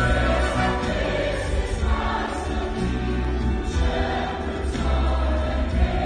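A large mixed choir singing with orchestra accompaniment, sustained chords changing every second or so.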